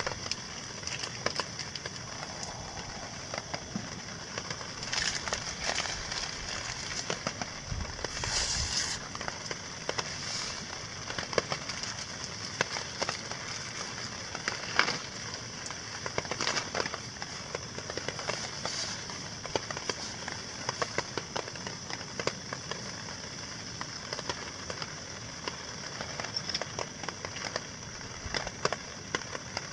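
Light rain dripping: scattered sharp ticks of drops landing on nearby surfaces over a steady hiss, with a brief denser patch of ticks and rustle about five to nine seconds in.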